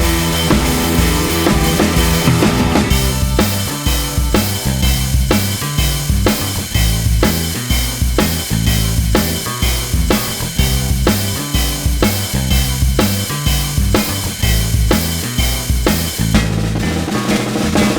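Background music: a steady drum-kit beat with kick, snare and a bass line.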